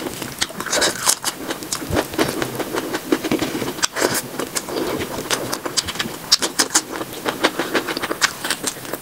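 Close-miked eating sounds sped up to triple speed: a rapid run of smacking and chewing clicks as a mouthful of basmati rice and mutton curry is mixed by hand and eaten.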